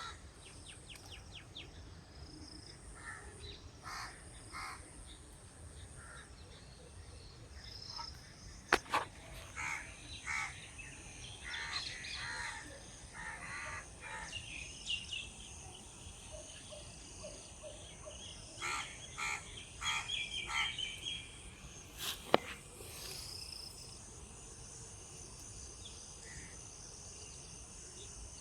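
Birds calling outdoors in groups of short repeated calls, over a steady high-pitched drone, with two sharp clicks.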